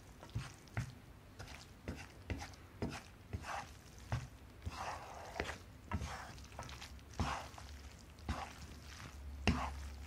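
Wooden spatula tossing spaghetti with diced pancetta in a frying pan: light knocks of wood against the pan about twice a second, with soft wet squelching of the coated pasta.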